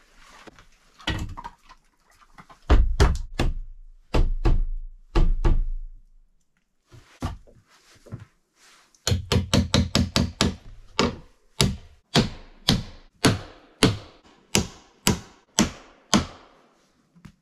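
A steel hammer driving nails into a wooden door frame. Heavy thuds come in the first few seconds, then a quick run of light taps, then steady blows about two a second.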